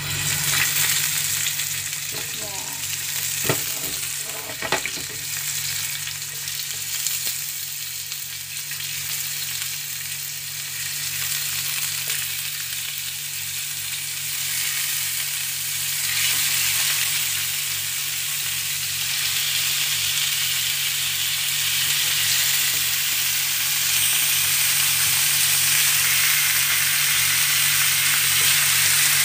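Marinated pork pieces sizzling in hot oil in a nonstick frying pan, over a steady low hum. There are a couple of light knocks a few seconds in, and the sizzling gets louder as more pieces are laid in.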